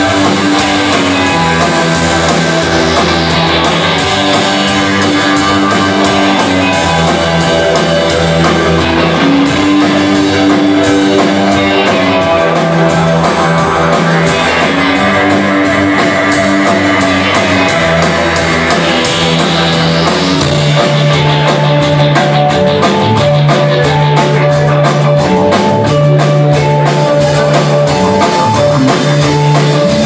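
Live rock band playing: electric guitars over a drum kit, loud and steady, with the drumming turning into a dense, fast cymbal beat about two-thirds of the way through.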